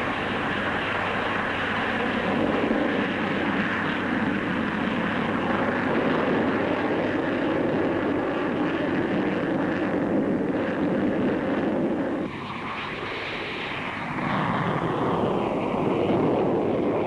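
Supermarine Swift jet fighters taking off at full power, their Rolls-Royce Avon turbojets making a loud, steady rushing jet noise. The sound drops for a moment about twelve seconds in, swells again, and cuts off suddenly at the end.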